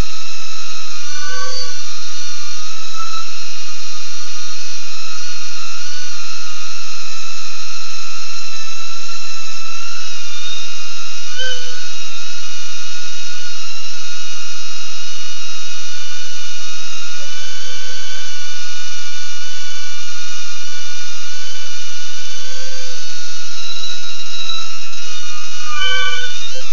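Motors and propellers of a BetaFPV Aquila16 tiny-whoop FPV drone whining steadily at a high pitch. The pitch rises and dips briefly every few seconds as the throttle is changed.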